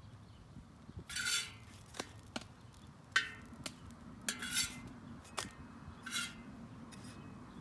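A utensil scraping and clicking against a stainless steel griddle disc while flour tortillas are turned and slid on it. There are four short scrapes, with sharp clinks between them.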